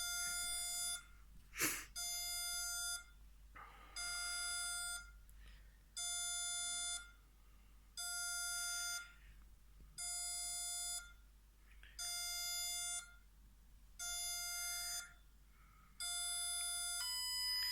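Homemade Arduino security alarm's buzzer beeping once every two seconds, each beep about a second long, counting down the entry delay after the front door is opened. Near the end the beeps give way to a steady, higher tone as the countdown runs out and the alarm activates. A single click about two seconds in.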